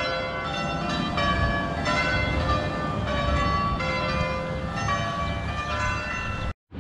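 Church bells ringing: several bells of different pitches are struck one after another in an uneven, overlapping sequence, each note ringing on. A steady low rumble runs underneath.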